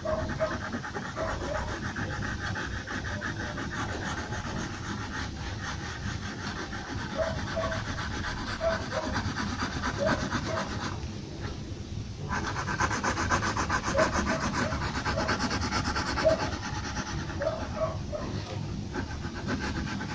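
Pencil shading on paper: a continuous run of rapid scratchy back-and-forth strokes, with a short pause about eleven seconds in.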